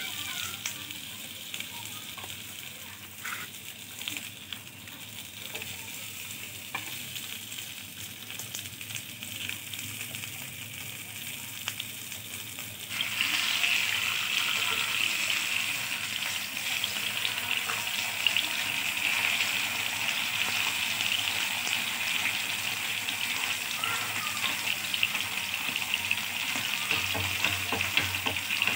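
Whole tilapia shallow-frying in a little oil on a nonstick tawa: steady sizzling, with light scrapes and taps of a wooden spatula. The sizzling becomes suddenly louder about halfway through.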